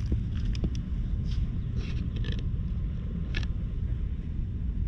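Steady low background rumble, with a few faint short ticks and rustles scattered through it.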